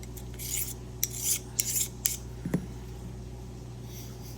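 Short rasping strokes of a Fiskars sewing scissor blade's freshly sharpened edge being rubbed to work the burr off, about five quick strokes in the first two seconds, then a single light click.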